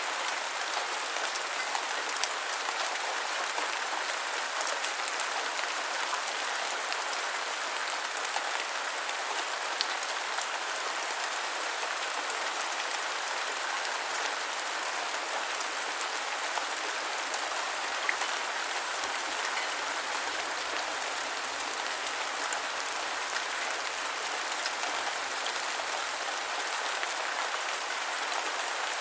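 Steady rain falling, with scattered individual drop ticks standing out here and there.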